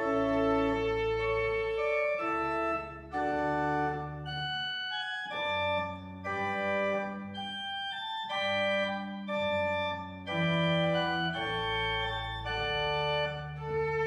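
Pipe organ playing sustained chords over a low bass line, the notes changing every second or so.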